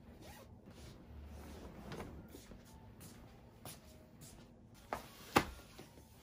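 Bedding being pulled off a bed: soft rustling of a duvet cover and a quilted mattress pad, with a sharp click about five seconds in and a louder one just after.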